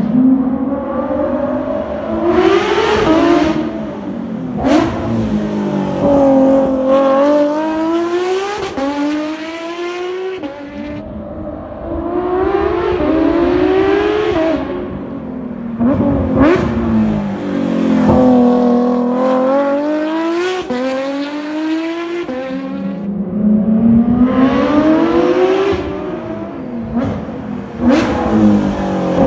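Porsche 992 GT3 RS's naturally aspirated flat-six, through an R1 Motorsport RSR exhaust, accelerating hard again and again. The revs climb and drop sharply at each upshift, with short sharp cracks at several of the shifts.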